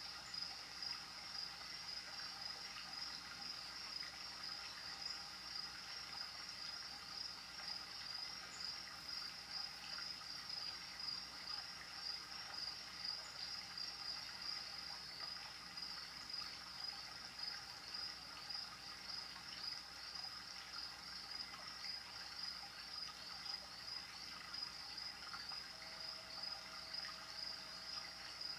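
Crickets chirping in a steady, even pulse as part of a night-time nature chorus.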